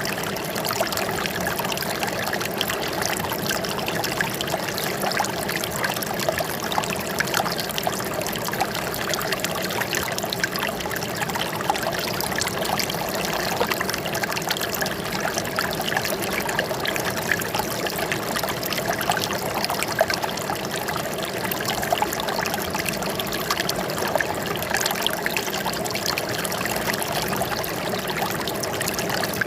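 Running water trickling and splashing steadily, an even rush of flowing water with many small splashes.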